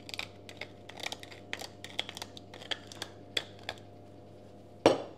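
Hand pepper mill grinding peppercorns: a run of quick, irregular crackling clicks as it is twisted, stopping after about four seconds. A single sharper knock follows near the end.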